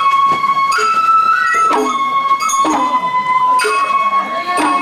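Sawara bayashi festival music from the float's hayashi band. A bamboo flute holds high, steady notes over percussion strikes, with a ringing metal clang roughly once a second.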